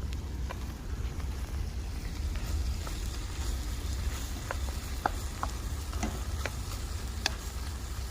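Horse clams and broccoli sizzling in a pan, with a utensil clicking against the pan several times in the second half as the stir-fry is stirred, over a steady low rumble.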